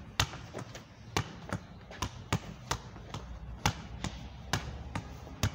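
A red ball struck again and again in volleyball forearm passes against a painted concrete-block wall: a dozen or so sharp impacts as the ball rebounds between forearms and wall, often in quick pairs about a third of a second apart.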